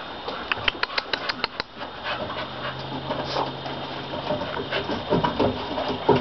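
Boston terriers play-wrestling: a quick run of sharp clicks about a second in, then low dog noises that grow toward the end.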